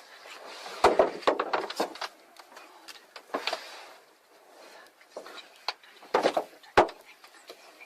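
Irregular knocks and thumps: a cluster of sharp hits about a second in, a few more around three and a half seconds, and the loudest strikes a little after six seconds.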